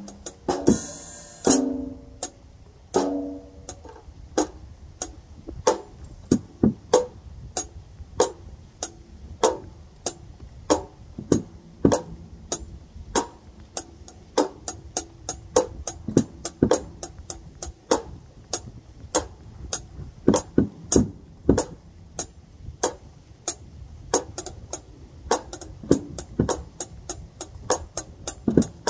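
Small drum kit played with sticks in a steady medium-tempo groove, a 'medium pocket', with evenly spaced cymbal and drum hits. There is a busier flurry of hits about a second in.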